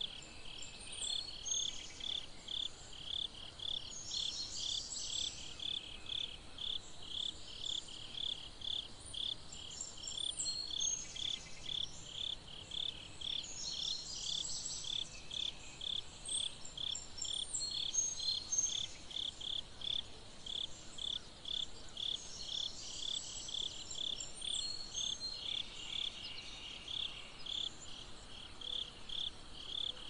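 Insects chirping in an even rhythm, about two or three short chirps a second, without a break. Higher, scratchier chirps come in a few times.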